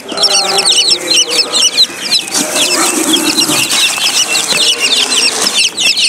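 A boxful of silkie and bantam chicks peeping constantly: many short, high chirps overlapping, each one falling in pitch.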